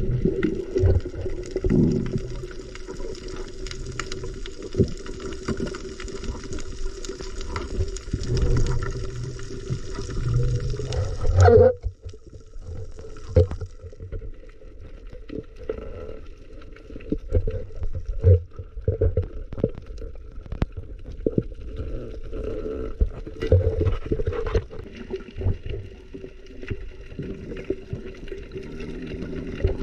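Water sounds picked up by a freediver's camera: muffled gurgling and sloshing with a low steady hum and many scattered clicks and knocks. About twelve seconds in, a loud splash-like burst is followed by the upper hiss cutting out, leaving a duller, quieter sound.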